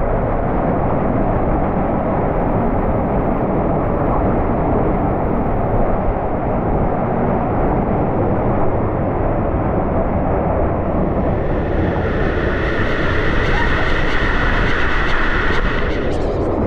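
Waterfall pouring, a loud steady rushing rumble of falling water that turns brighter and hissier about twelve seconds in.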